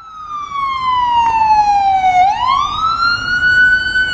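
Ambulance siren wailing loudly. Its pitch falls slowly for about two seconds, then rises back up and holds near the top, and starts to fall again near the end.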